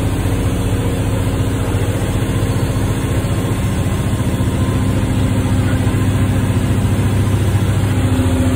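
Heavy truck's diesel engine heard from inside the cab, running with a steady low hum as the truck drives along a rough dirt track.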